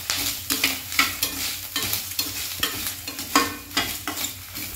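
A steel spatula stirring and scraping grated coconut, dried red chillies, curry leaves and whole spices around a stainless steel pan as they roast in a little oil, with a frying sizzle underneath. The scraping strokes come irregularly, a few a second.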